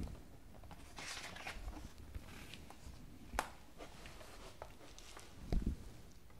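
Hardcover picture book handled, opened and its pages turned by hand: soft paper rustles, a sharp tap about three and a half seconds in, and a low thump near the end.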